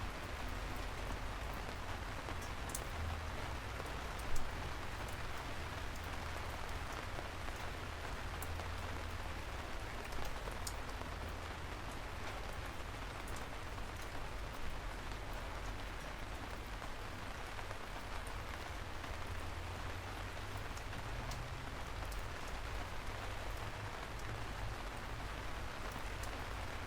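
Steady rain falling on a surface, a continuous hiss with scattered individual drops ticking and a low rumble underneath. One louder drop or tap stands out about four seconds in.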